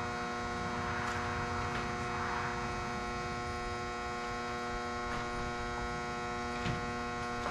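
Steady electrical machine hum with even overtones, joined by a soft hiss about a second in and a few faint clicks near the end.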